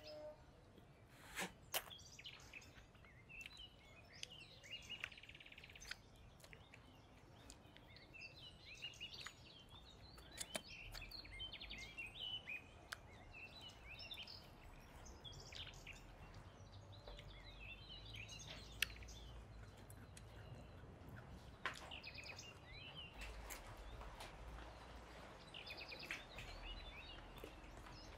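Faint bird chirps, many short calls scattered throughout, over a low background hum, with a few sharp clicks.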